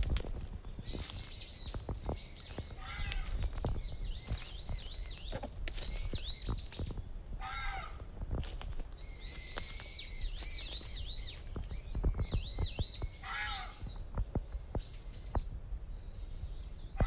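Reeves's muntjac (kyon) giving short calls three times, about every five seconds. Songbirds chirp in quick high notes throughout.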